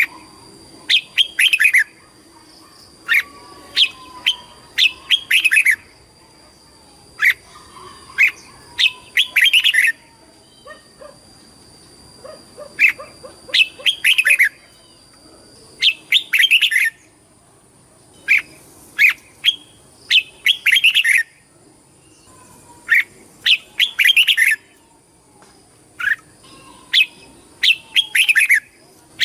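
Red-whiskered bulbul singing: short phrases of quick, sweeping chirps that come in bursts every couple of seconds with brief pauses between them.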